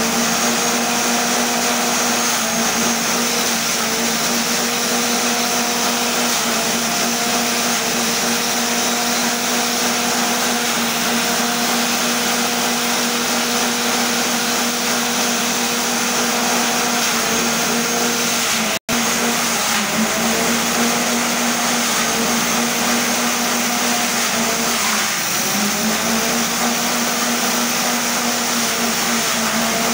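Petrol-engine grass chopper running at speed while stalks are fed in: a steady engine hum over the noise of the blades chopping. The engine pitch sags briefly a few times as stalks load it, and the sound cuts out for an instant about two-thirds of the way through.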